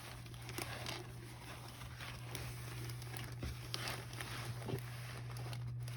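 Faint scattered rustles and light ticks of a rolled diamond painting canvas being unrolled and handled, over a steady low hum.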